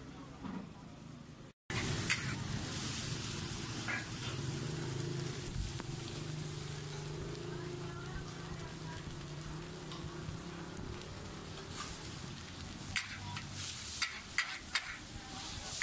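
Char koay teow noodles sizzling hard in a large wok, with a metal spatula scraping and clicking against the wok as they are stir-fried. The sizzle starts abruptly about a second and a half in, and a quick run of spatula clicks comes near the end.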